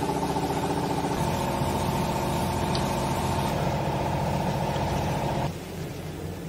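Motor-driven pump on the baling line running steadily, with a hum and a fast, even pulsing, then cutting off suddenly about five and a half seconds in.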